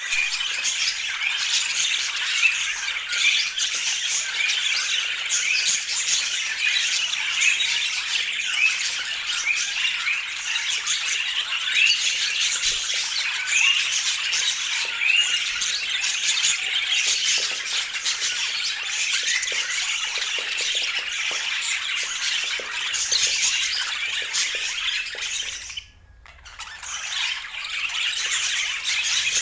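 Budgerigars chirping and chattering continuously in dense, overlapping high calls, with a brief break near the end.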